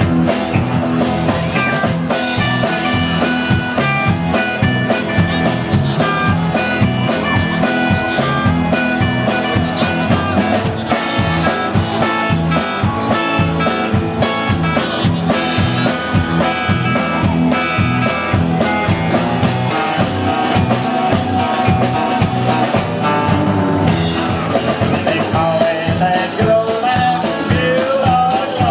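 Country band playing an instrumental break: lead guitar picking quick runs of notes over bass and a steady drum beat.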